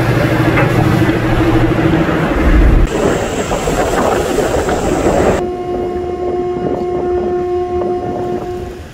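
Car ferry under way: the ship's engine hums steadily under wind and water noise. A little past halfway the rushing noise drops away, leaving a cleaner, higher-pitched machinery hum.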